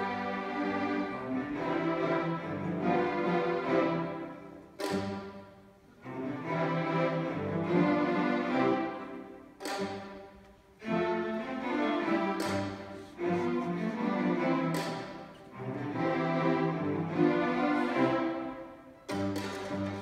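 Student string orchestra of violins, cellos and double basses playing a classical piece. Phrases swell and fade, and each new one comes in with a sharp accented attack, several times.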